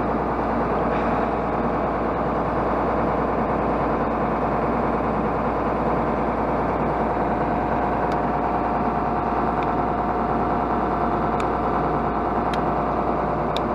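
John Deere tractor's six-cylinder diesel engine running steadily at an even speed, with a constant whine over the engine noise and a few faint ticks near the end.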